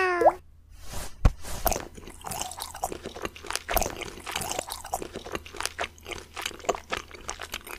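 Cartoon eating sound effects: a rapid, irregular run of crunching bites and chewing, with a low thump about a second in.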